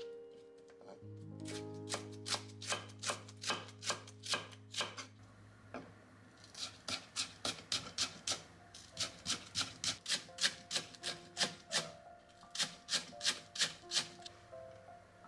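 Kitchen knife mincing a long green onion on a wooden cutting board. The crisp chopping strokes come about three a second, in several runs with short pauses between them.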